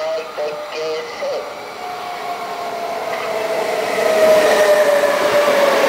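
SBB electric locomotive hauling passenger coaches, coming along the platform. Its whine falls slowly in pitch and grows louder, reaching full loudness about four seconds in.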